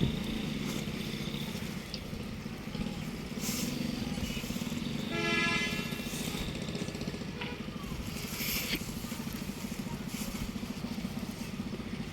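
Ruston Hornsby heavy stationary diesel oil engine running with a steady, rapidly pulsing low rumble. A short pitched tone sounds about five seconds in.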